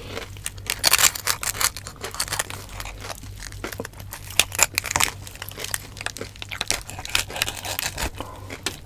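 Roast suckling pig being pulled apart by hand: irregular crackling and tearing of its crisp skin and meat.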